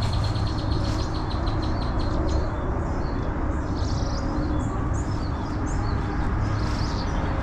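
Wild birds chirping: a quick run of high trilled notes at the start, then scattered short chirps. A steady low rumble runs underneath.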